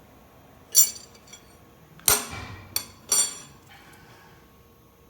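Steel parts clanking metal on metal: four sharp strikes, each ringing briefly, within about two and a half seconds.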